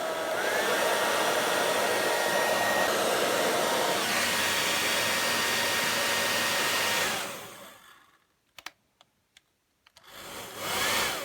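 A handheld hair dryer's fan motor and heater running with a steady airflow and a high motor whine that steps up twice as it changes speed. It runs down and stops about seven seconds in, a few sharp clicks follow, and it runs briefly again near the end. The dryer is working again after a break in its power cord was repaired.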